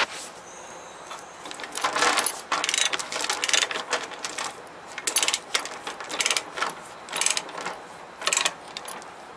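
Ratchet chain binder being cranked to tension a load-securing chain: short bursts of ratcheting clicks, roughly one stroke a second, starting about two seconds in.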